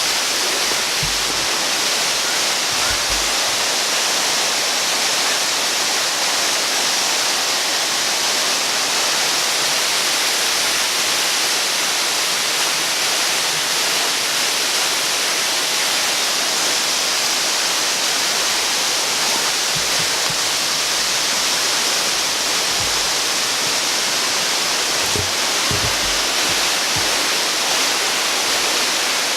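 Waterfall water pouring and rushing in a steady roar, with a few low thumps from the camera being handled.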